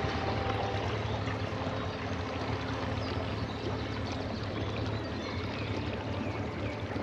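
Small boat under way: water rushing and splashing along the hull over a steady low motor hum.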